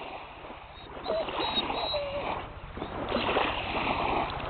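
Shallow water sloshing and splashing at the sandy edge, growing louder about a second in, with two short squeaky notes between one and two seconds.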